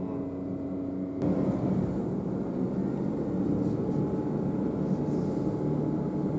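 Steady hum of a car's engine and tyres on the road, heard from inside the cabin while driving. It steps up suddenly louder and rougher about a second in.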